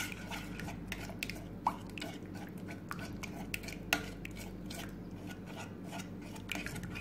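Metal spoon clinking and scraping against a steel saucepan while stirring a thick white sauce to break up its lumps, in irregular light clicks. A low steady hum runs underneath.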